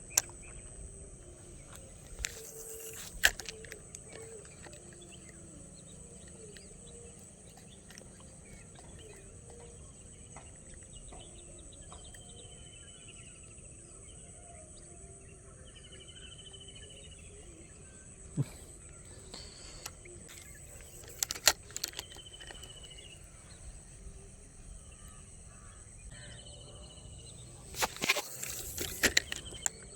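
Outdoor ambience: a steady high insect drone, a bird giving a short call four times, and a few sharp clicks and knocks, the loudest about three seconds in, about twenty-one seconds in, and in a cluster near the end.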